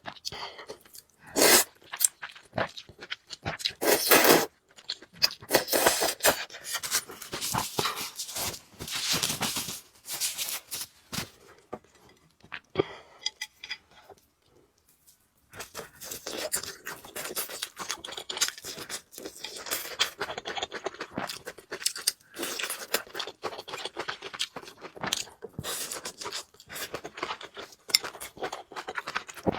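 A person eating noodles close to the microphone: irregular chewing and wet mouth sounds, some bursts sharp and loud, with a quiet pause of a couple of seconds about halfway through.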